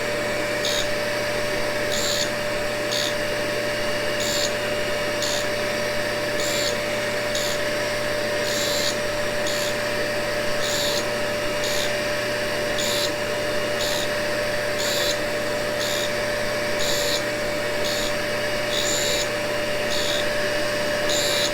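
Cincinnati No. 2 tool and cutter grinder and a dust-extraction vacuum running together while a carbide tool is ground on a diamond cup wheel: a steady machine hum with one steady tone, and a high hiss pulsing a little more than once a second.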